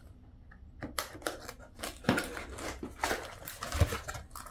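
Cardboard box being slit open with a small cutter and its lid pulled open: a run of short scrapes and clicks of blade and cardboard starting about a second in, with a dull thump near the end.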